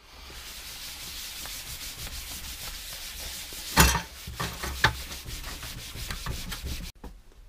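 Cloth rag rubbed briskly back and forth over a workbench top, wiping off marker writing, in quick repeated strokes. A sharp knock about four seconds in, with a few lighter clicks after it, and the rubbing cuts off suddenly near the end.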